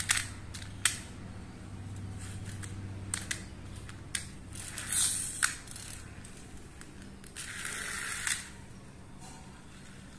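Small toy trucks clicking sharply against a tiled floor as they are set down and handled, with two short hisses of little wheels rolling across the tiles. A low steady hum runs underneath.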